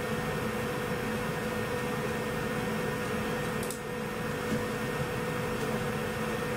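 Steady hiss with a low electrical hum, the recording's background noise with no speech over it; it dips briefly just past the middle.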